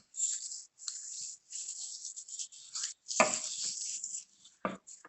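Hands rubbing a gritty salt and coconut oil scrub over skin: a run of scratchy scraping strokes, with a louder stroke about three seconds in and another near the end.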